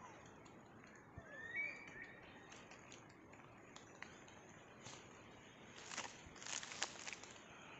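Faint forest ambience with a short chirping call about a second and a half in. Near the end come a few seconds of rustling and crackling as a person shifts and stretches in a nylon hammock.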